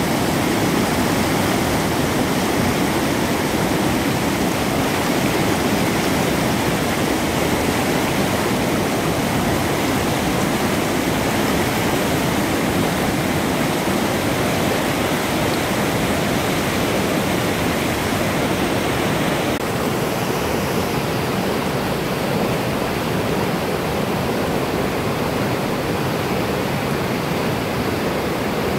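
Mountain river in spate, swollen by snowmelt, rushing over rocks in whitewater rapids: a loud, steady rush of water. About two-thirds of the way in, the hiss in the sound softens a little.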